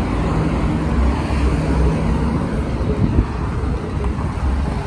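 Steady low rumble of street noise on a phone microphone: passing traffic and wind on the microphone, with a faint steady hum in the first couple of seconds.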